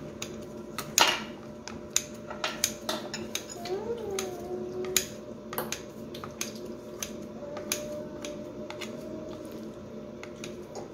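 Kitchen scissors snipping through soft rice cakes and vegetables, mixed with a fork clinking on ceramic bowls: scattered sharp clicks, about one or two a second, at irregular intervals.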